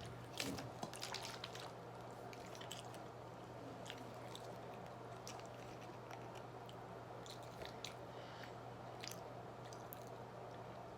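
Faint close-up chewing and wet mouth sounds of a person eating pizza: soft smacks and clicks, busiest in the first couple of seconds and sparser after, over a steady low hum.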